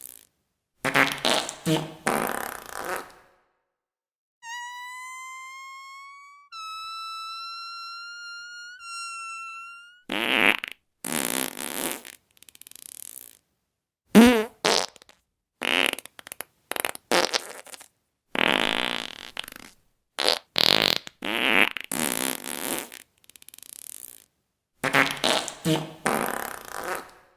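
A string of fart sound effects, one after another with short gaps: a dozen or so brief raspy blasts and sputters, the sharpest about 14 seconds in. About four seconds in, a long, high, squeaky whistling tone rises slowly for about five seconds.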